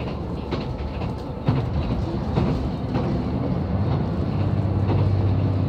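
Inside a JR West KiHa 187 diesel railcar at speed: wheels clack over rail joints every second or so above a steady running rumble. Near the end, the diesel engine's low drone swells and grows louder.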